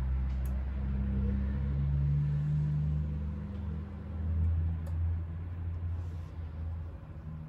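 Gorenje UseLogic washing machine's motor and drum running with a low hum during the spin-only programme. The drum speeds up, then slows, and the laundry drops back to tumble, as the machine distributes the load before spinning.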